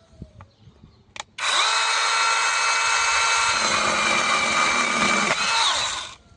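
Brushless motor of a battery-powered 6-inch mini chainsaw running at full speed with a steady whine for about four and a half seconds, after a brief blip of the trigger. Near the end the pitch drops and it winds down.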